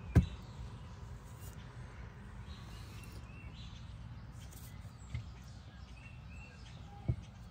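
A used oil filter knocking against a plastic oil drain pan as it is handled and drained: one sharp knock just after the start and softer ones about five and seven seconds in, over a steady low outdoor rumble with a few faint bird chirps.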